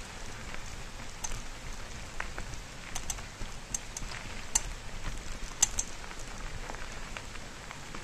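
Mountain bike tyres rolling fast over loose gravel: a steady crunching hiss broken by many short sharp clicks of stones and rattles of the bike, one sharper click a little past halfway.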